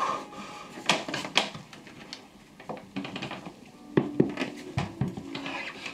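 Hands and climbing shoes knocking and scuffing on wooden holds and a plywood climbing board: irregular sharp knocks, two loud ones about a second in and two more around four seconds in.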